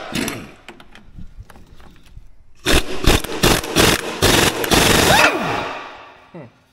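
Air impact wrench hammering on a rusted, seized track roller bolt: a short burst at the start, then a long run of rapid hammering from about three seconds in that stops a little after five seconds.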